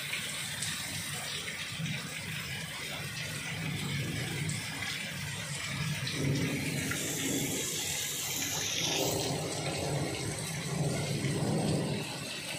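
Storm floodwater rushing down the street like a torrent, a steady rushing of water, with heavy rain or hail falling on it.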